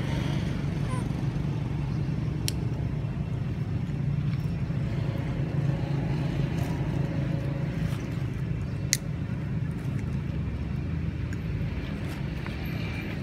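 Steady low motor rumble, like a vehicle engine running, with a sharp click a little after two seconds in and a louder one about nine seconds in.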